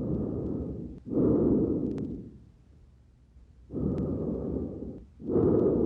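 Breath sounds of the anterior chest heard through a stethoscope: two full breaths, each a rushing inhale and exhale, with a short pause between the breaths.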